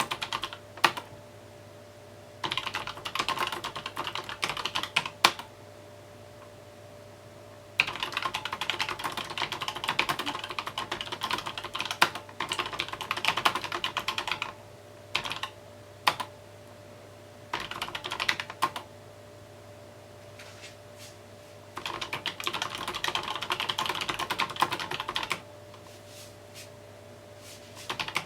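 Typing on a mechanical keyboard in runs of quick keystrokes a few seconds long, broken by short pauses with the odd single key press. A faint steady hum runs underneath.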